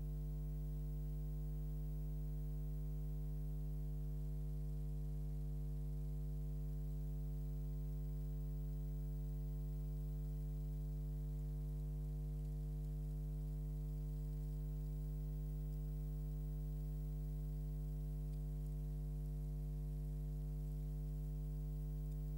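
Steady electrical mains hum, a low buzz with a stack of overtones and a faint hiss, unchanging.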